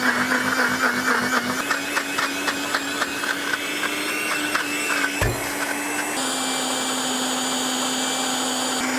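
Personal bullet-style blender running at full speed, puréeing herbs, garlic, capers and olive oil into a green sauce. For the first five seconds or so pieces clatter against the cup, with a single knock about five seconds in; then the sound turns smoother and steadier as the mix becomes a purée.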